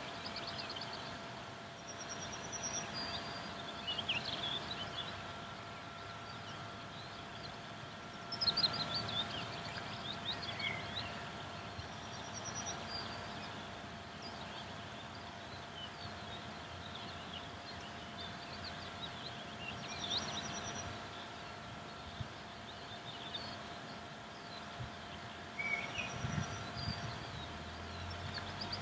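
Songbirds calling and singing on and off, with a short high trill that comes back every several seconds, over a faint steady hum.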